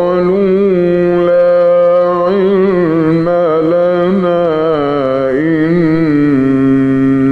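A male reciter's voice chanting the Quran in a melodic, ornamented style, holding one long drawn-out line with small wavering turns in pitch.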